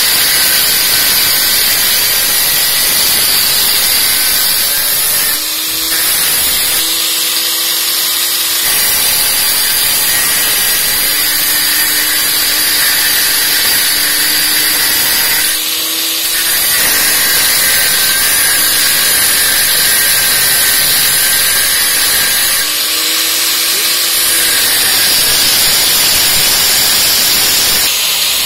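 Electric angle grinder running with its disc grinding into the copper header of a finned boiler heat exchanger: a steady, loud grinding noise that dips briefly a few times as the disc eases off the metal.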